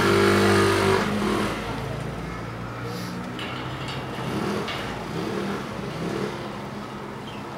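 A road vehicle's engine accelerating past close by, loudest in the first second and then fading into steady background traffic.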